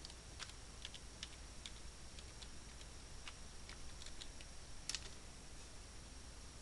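Faint computer keyboard typing: a run of unevenly spaced keystrokes as a web address is typed, then one louder keystroke about five seconds in, the Enter key sending the address. A steady low hum runs underneath.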